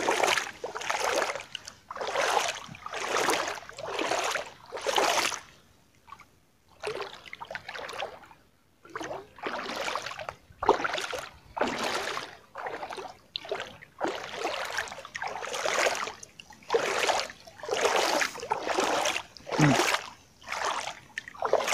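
Legs wading through shallow seawater, a swishing slosh with each stride about once a second; the strides stop for about three seconds a quarter of the way in, then carry on.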